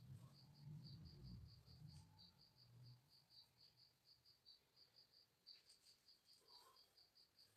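Faint cricket chirping: an even run of short, high chirps at about four a second. A low rumble sounds during the first few seconds.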